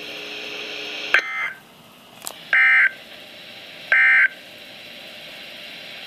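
NOAA Weather Radio sending the SAME end-of-message code that closes a warning broadcast: three short, harsh data bursts about a second and a half apart, the first fainter, over steady radio hiss. A sharp click falls between the first and second bursts.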